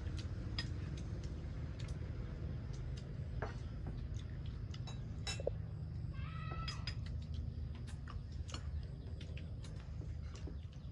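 Metal spoons clicking and scraping against plates during a meal, over a steady low hum, with one brief high call about six seconds in.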